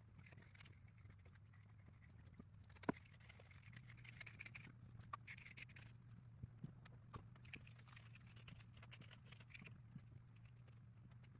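Faint, irregular small clicks and light scrapes of thin laser-cut plywood model parts being handled on a table, over a low steady hum.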